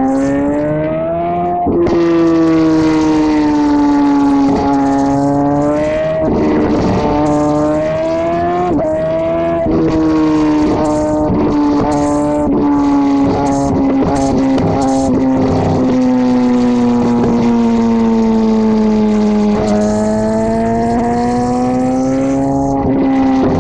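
Exhaust note of a 2009 Suzuki GSX-R1000's inline-four through a Two Brothers M2 carbon-fibre slip-on muffler, heard right at the muffler while riding at road speed. The note rises and falls with the throttle. It drops and breaks briefly a few times in the first ten seconds, sags and climbs again near the end, with wind rush underneath.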